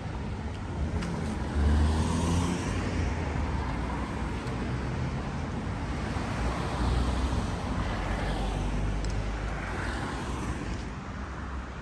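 Road traffic on a city street: cars passing with engine rumble and tyre noise, swelling as vehicles go by about two seconds in and again near the middle.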